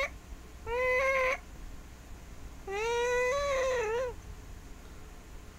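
Domestic cat meowing twice: a short meow about a second in, then a longer meow that rises and falls in pitch.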